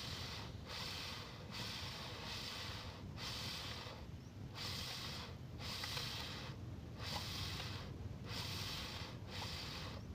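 Cylinder block of a Volvo excavator's hydraulic travel motor being lapped by hand on a sheet of glass: rhythmic back-and-forth scraping strokes, about one a second, as the sealing face is brought flat and smooth.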